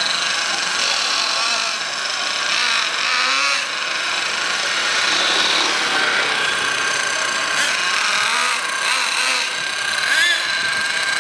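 Small nitro (glow-fuel) engine of an RC monster truck running with a steady high-pitched buzz, its pitch briefly rising and falling about ten seconds in.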